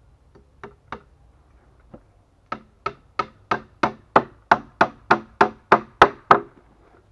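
Claw hammer striking a wooden plank bed frame: a few light taps, then a steady run of about thirteen blows, roughly three a second, mostly growing louder.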